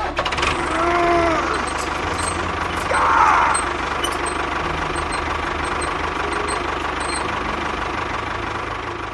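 Small motor running with a fast, steady chugging, and two short whines that rise and fall about a second and three seconds in.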